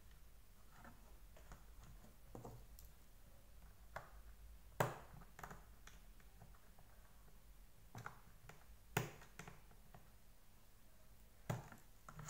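Sharp plastic clicks and taps, about six spread over several seconds, the loudest about five seconds in, from handling a Deerma VC25 vacuum's floor brush head with a small screwdriver while its wheel is refitted.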